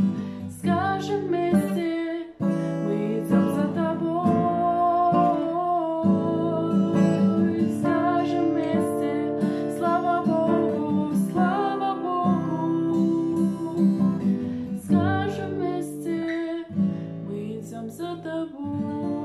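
A woman singing, accompanied by a strummed acoustic guitar.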